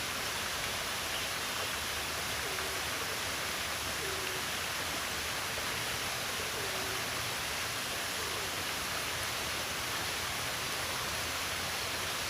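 Steady rushing water noise, even and unbroken, with a few faint short chirps under it every couple of seconds.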